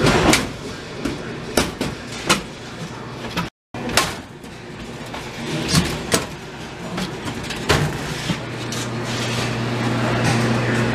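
Wire shelves of a Dixie Narco glass-front vending machine rattling and knocking against the cabinet as they are worked loose and pulled out, in scattered sharp clanks. From about three-quarters of the way through, a steady low hum sits under the clatter.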